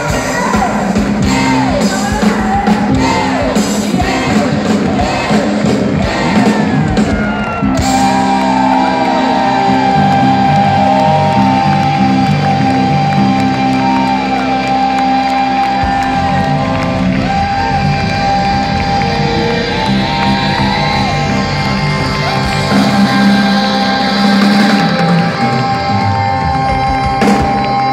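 Live rock band in a concert hall: drums, bass and guitar playing hard for several seconds, then holding a long sustained chord with a steady high note, the usual big ending of a rock number. Singing and shouts ride over it.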